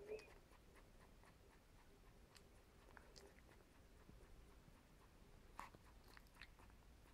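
Near silence: quiet room tone with a few faint, soft clicks scattered through it, a drowsy young Akita puppy's mouth smacking.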